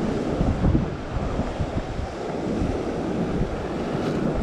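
Ocean swell washing and foaming against a rock ledge, with wind buffeting the microphone.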